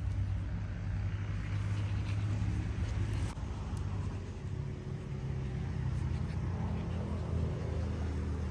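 A steady low rumble of an engine running, unchanging throughout.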